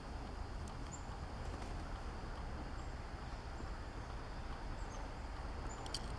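Outdoor background: a steady low rumble with a few faint, short, high-pitched bird chirps every second or two.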